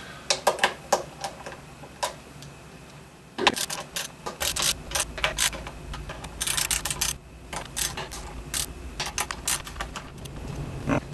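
Sharp clicks and small metal clatter from a hand screwdriver tightening the mounting screws of Grover locking tuners on an electric guitar headstock, coming in several irregular bursts.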